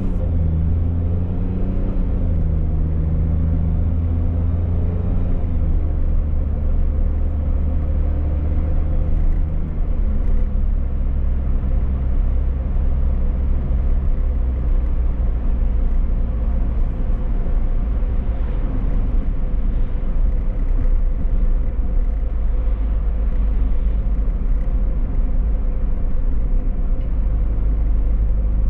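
A car driving along, with engine and road rumble. The engine note rises and steps a few times in the first ten seconds or so as the car pulls away and accelerates, then settles into a steady drone.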